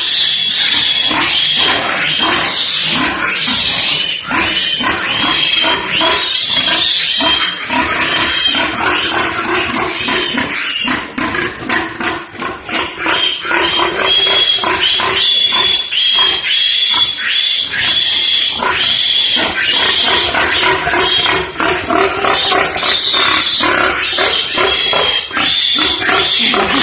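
Pigs squealing loudly and almost without pause, with many high-pitched cries overlapping and a short lull about twelve seconds in.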